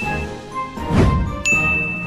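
Added cartoon sound effects: a whoosh about halfway through, then a bright, held ding.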